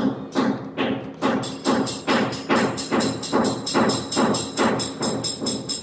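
Background music with a steady percussive beat, about two and a half strikes a second, joined about a second in by high ringing bell-like chimes; it stops at the end.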